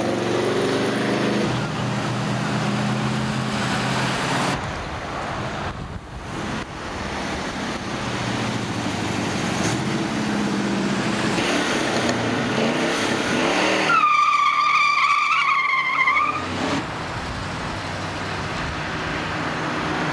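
Muscle cars with V8 engines driving past, their engine notes rising and falling as they rev and pass. About two-thirds of the way through, a loud wavering tire squeal lasts about two and a half seconds.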